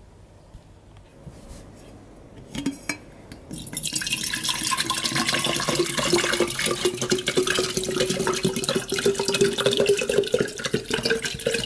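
Water pouring into a tall glass jar, starting about three and a half seconds in and running loud and dense, with a tone that rises slowly as the jar fills. Before it, a few faint light knocks.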